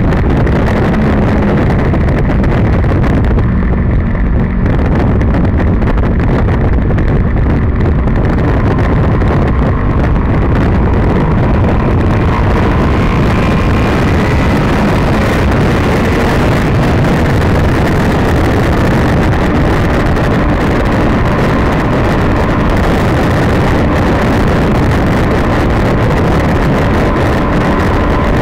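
Honda VFR800F's V4 engine running steadily at road speed, heard from a camera mounted on the bike through heavy wind rush on the microphone.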